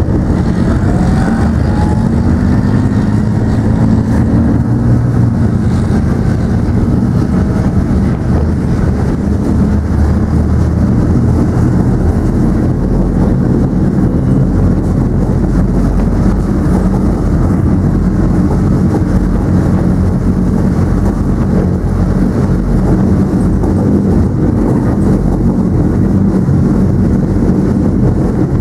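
Leopard 2 tank's V12 diesel engine and tracks running steadily while the tank drives, heard loud and close from on board.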